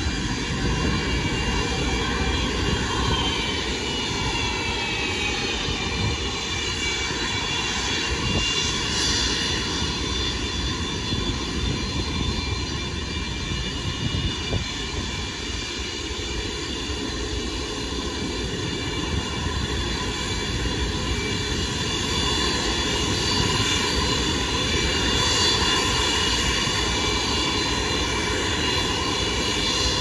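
Antonov An-124-100's four D-18T turbofan engines running at taxi power: a steady jet whine of several high tones over a low rumble, the tones sliding down a little a few seconds in.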